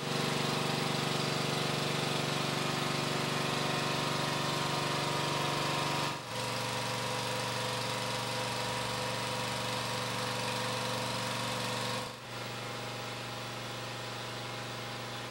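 Steady machine hum: a motor running with a low, even drone and a hiss above it. The pitch and level shift slightly at two cuts, about 6 and 12 seconds in.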